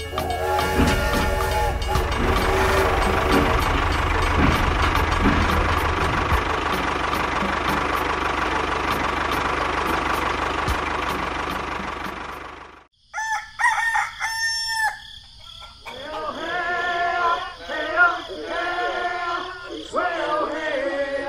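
A steady noisy whirr with a low hum for about thirteen seconds, cutting off suddenly; then a rooster crowing, followed by a run of clucking calls.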